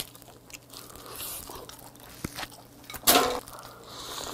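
Close-miked eating of a steamed oyster straight from the shell: chewing and wet mouth sounds with a few sharp clicks, and one louder, brief sound about three seconds in.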